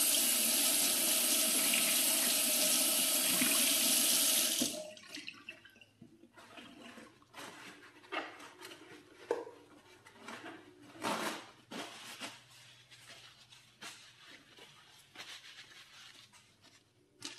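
Kitchen tap running full into the sink for about five seconds, then turned off. Faint knocks and rustles follow.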